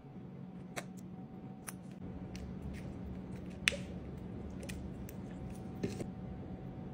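Squeeze bottles of hot sauce and dark sauce being squirted over fried dumplings in a plastic tray, giving a scatter of small sharp clicks and squirts. The loudest comes a little before four seconds, over a steady low hum.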